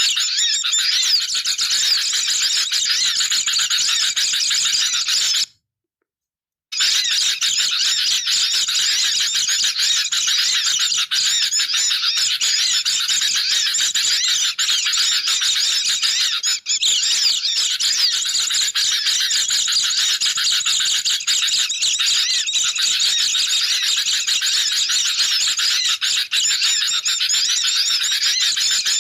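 Dense, busy chatter of many overlapping bird calls: sooty-headed bulbuls' agitated chattering mixed with white-eyes' high twittering, a bird-lure call mix. It breaks off into about a second of silence roughly six seconds in, then resumes.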